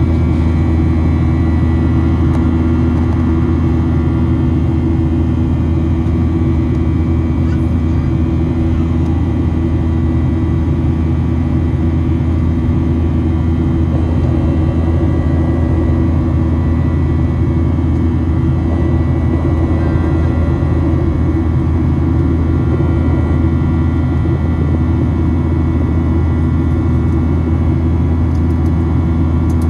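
Steady cabin drone inside a Boeing 737-800 in flight, from its CFM56-7B turbofan engines and the airflow: a loud, unchanging low drone with a faint high whine on top.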